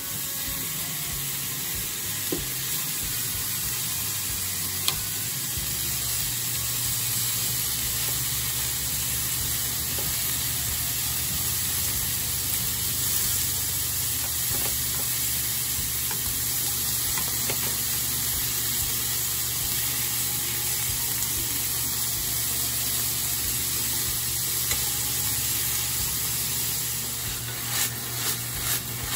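Thinly sliced beef sizzling in a hot frying pan, the sizzle starting as the meat is dropped in, with a few light taps of a wooden utensil as it is stirred. Near the end the pan is shaken and the meat tossed, with a run of clicks and knocks.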